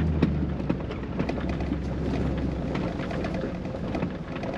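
Tyres of a 2000 Chevrolet Silverado on 33-inch tyres crunching over a rough gravel road, with scattered sharp clicks of stones, heard from inside the cab. The steady engine drone fades away at the start.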